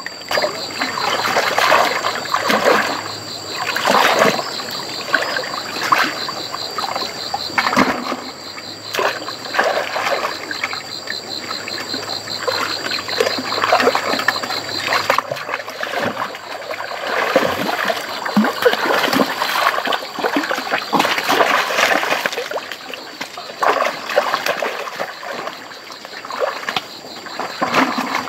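Irregular, frequent splashing and sloshing in shallow water, in sudden uneven bursts.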